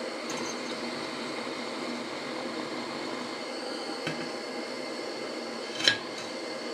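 Portable gas stove burner flame hissing steadily under a tilted aluminium pan. A faint click about four seconds in and a sharper, louder click near the end.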